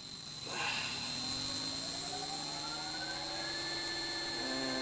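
Bridgeport milling machine's motor running up to speed to drive the slotting head, its whine rising in pitch for about three seconds and then holding steady, over a steady high-pitched whine.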